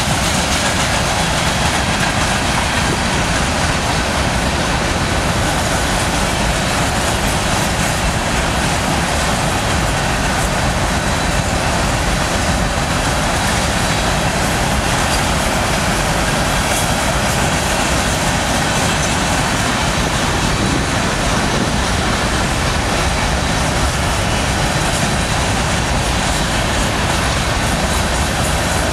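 Freight train cars rolling steadily past close by: a continuous rumble and rush of steel wheels on the rails, with no engine or horn standing out.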